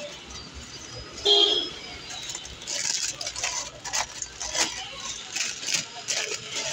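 A short horn-like toot about a second in, the loudest moment. From about two and a half seconds in, a clear plastic bag crinkles and crackles as a plastic toy truck inside it is handled.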